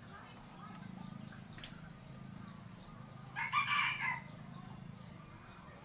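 A rooster crows once, briefly, about three and a half seconds in. Underneath there is a steady low hum and faint, rapid high chirping.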